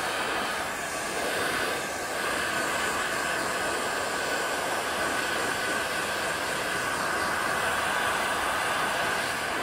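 Electric heat gun running at full power, a steady rush of blown air with a constant whine, as it heats a freshly applied vinyl decal on motorcycle plastic to soften the adhesive.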